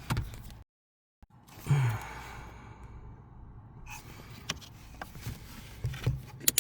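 A person sighs heavily, with small clicks and rustles of hands working close to the microphone. The sound cuts out completely for about half a second near the start.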